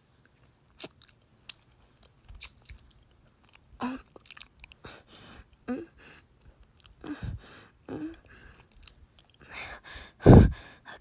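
Close-miked wet kissing and lip-smacking mouth sounds, a scatter of short smacks and clicks that grow denser toward the end, with one loud, deep smack about ten seconds in.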